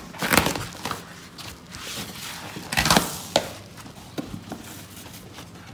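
Carpet and its foam pad being pulled back off a plywood subfloor, with two loud rasping tears, one just after the start and one about three seconds in, then a sharp click and a few lighter rustles.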